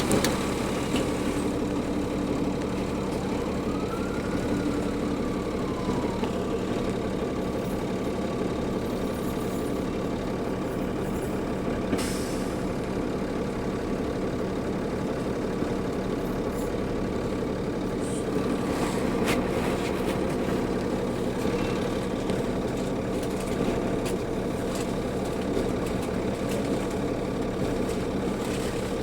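The Cummins ISL diesel engine of a 2004 New Flyer D40LF transit bus running steadily with a low hum. About three seconds in, a turbo whine rises and falls. Two sharp clicks come later.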